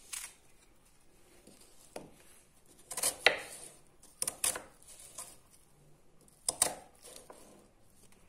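Kitchen knife chopping onion and garlic on a cutting board: a few irregular, separate knocks of the blade, the loudest about three seconds in.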